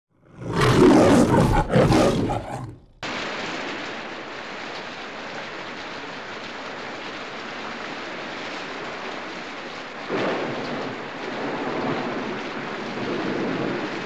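A lion's roar in two loud pulses, the MGM logo roar, cut off sharply after about three seconds. Then steady heavy rain and wind of a storm, swelling louder about ten seconds in and again near the end.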